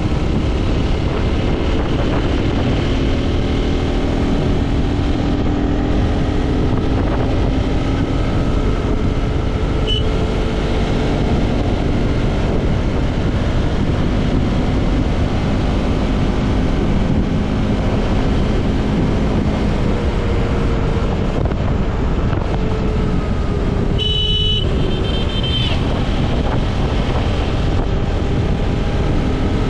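Motorcycle engine running steadily while riding, its pitch drifting slightly with speed, under heavy wind noise on the camera's microphone. A brief high-pitched sound with several tones comes about 24 seconds in.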